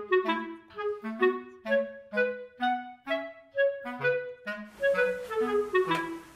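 Background music: a light woodwind melody, clarinet-like, played in short, separate notes, about two to three a second.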